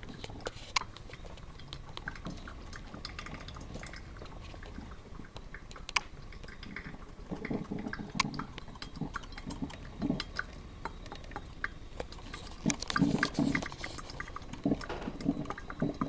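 Black & Decker drip coffee maker brewing: water gurgling and dripping into the glass carafe, with scattered ticks and louder bursts of gurgling about halfway through and again near the end.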